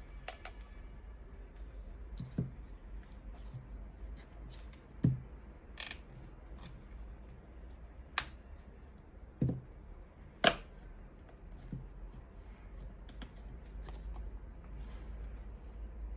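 Plastic front bezel of a handheld scan tool being handled and worked by hand: scattered small clicks, taps and scrapes, with a few sharper plastic clicks, the loudest a little past halfway through.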